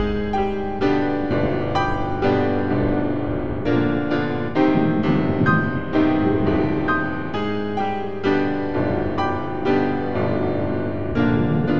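Piano music, a melody of single struck notes at about two a second.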